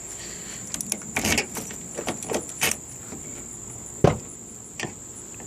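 Key working the newly fitted lock cylinder in a 1993 Mazda MX-6's driver's door: a run of small clicks and rattles over the first few seconds, then one sharp clack about four seconds in.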